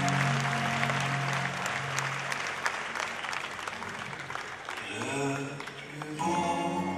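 Audience applauding over background music, the clapping dying away over the first four seconds or so. About five seconds in, a new, softer musical passage begins.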